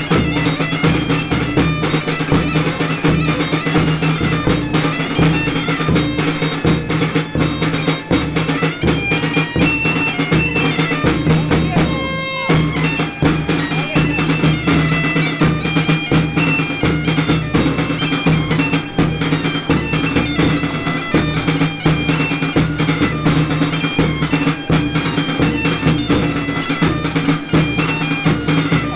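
Traditional folk music: a bagpipe playing a melody over a steady drone, with regular drum beats. The music breaks off briefly about twelve seconds in.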